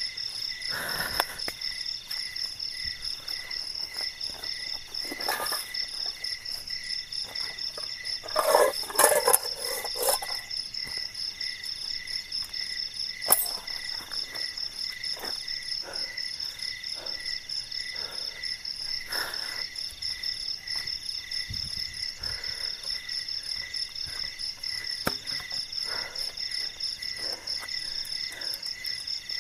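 Steady chorus of night insects such as crickets, a fast pulsing chirp at several pitches. Over it come scattered rustles and knocks of camping gear and the tent tarp being handled, loudest in a cluster about nine seconds in.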